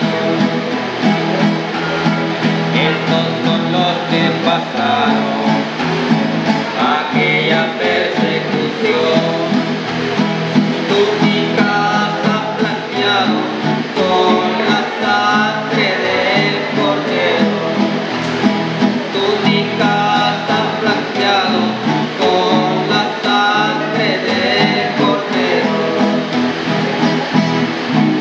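Two acoustic guitars strummed together with a man singing a praise song over them.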